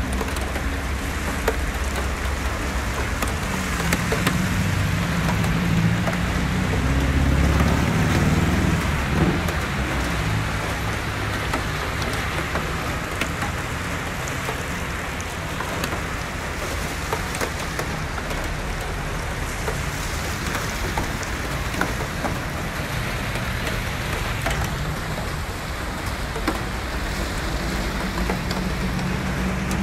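Steady heavy rain pouring down on a road and roofs, a dense even hiss. A low rumble swells and fades between about four and ten seconds in, and rises again near the end.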